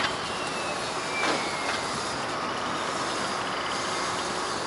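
Steady outdoor background noise with two faint, high, falling squeals in the first two seconds.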